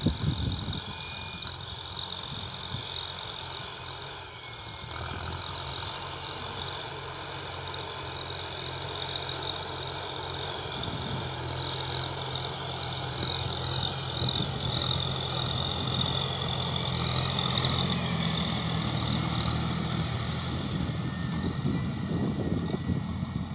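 Massey Ferguson 5710 tractor's diesel engine running steadily under load as it pulls a disc harrow through the soil, growing louder as the tractor comes closer over the second half.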